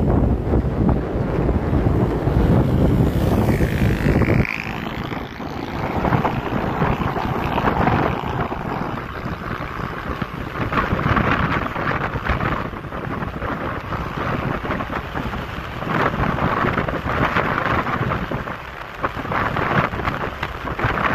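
Wind rushing over the microphone of a moving motorcycle, mixed with road and engine noise. A heavy low rumble drops off abruptly about four seconds in, leaving a steady rushing noise.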